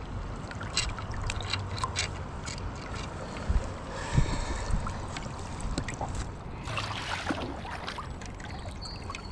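Shallow river water running and splashing close to the microphone around a hand holding a caught rainbow trout in the current, with scattered small clicks and a brief louder rush of water about seven seconds in.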